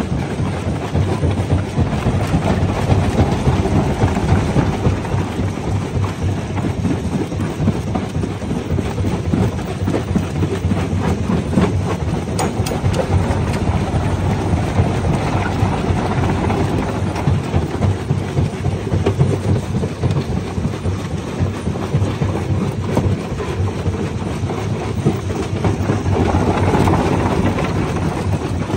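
Jaw crusher crushing and grinding rocks: a steady, heavy rumble with dense cracking and crunching of stone.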